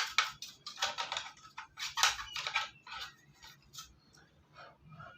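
Rapid, irregular clicks and scraping of hard plastic and metal parts being handled as a desktop computer's CPU fan is opened. The clicks thin out after about four seconds.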